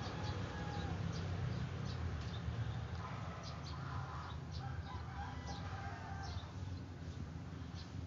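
Birds calling faintly, with scattered short high chirps and a lower call about three seconds in, over a steady low rumble.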